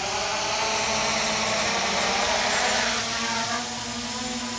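Brushless motors and propellers of a DROCON Bugs 3 quadcopter drone spinning up, rising in pitch, then whirring steadily at flying speed. The drone is in flight, and the whir eases a little about three seconds in.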